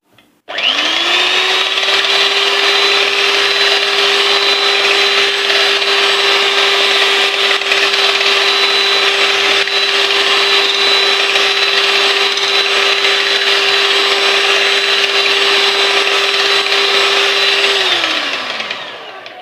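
Electric hand beater whipping eggs until frothy: the motor spins up about half a second in, runs at a steady pitch, then slows and stops near the end.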